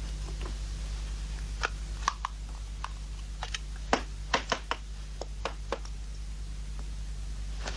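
Scattered small clicks and knocks of tools and telephone parts being handled, most of them between about one and a half and six seconds in, over a steady low hum.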